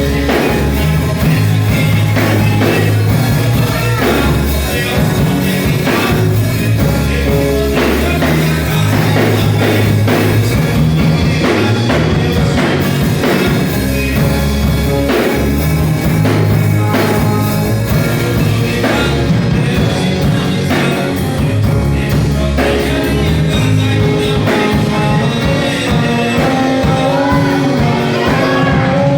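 Gospel worship band playing an upbeat song with electric bass, drum kit and guitar, with singing in places.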